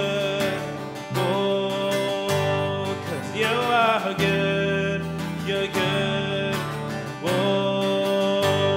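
Acoustic guitar strummed in a steady rhythm over an electric bass guitar playing a worship song, the bass changing notes every second or so. A man sings a drawn-out, sliding 'oh' around the middle.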